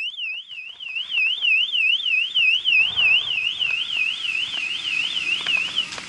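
Electronic alarm tone warbling rapidly up and down in pitch, about three sweeps a second, high and steady in level.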